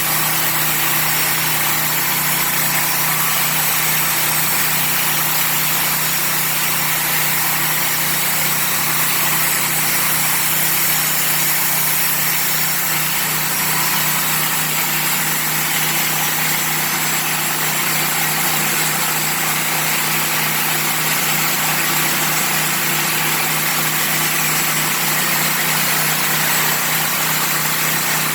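Honda petrol engine of a Dack SMP 13/85 portable sawmill running steadily at a constant speed.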